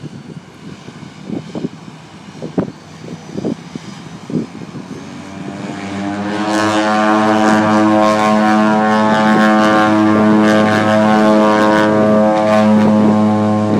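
De Havilland Canada DHC-6 Twin Otter floatplane's twin Pratt & Whitney PT6A turboprops at takeoff power during its takeoff run on the water: a steady propeller drone that swells sharply about six seconds in and then holds loud and even. A few short soft knocks come before it.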